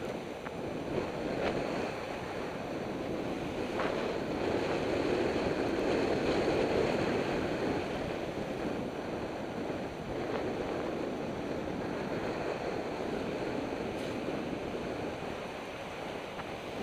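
Steady rushing of wind across the microphone and longboard wheels rolling on asphalt during a fast downhill ride, a little louder around the middle, with a few faint ticks.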